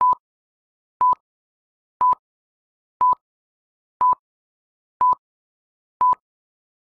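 Film-leader countdown beeps: a short, steady high-pitched beep once a second, seven in all, with dead silence between.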